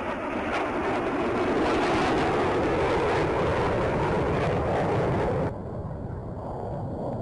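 Jet aircraft noise from the Black Eagles' T-50B jets on a display pass, a loud, dense rushing sound that drops off abruptly about five and a half seconds in.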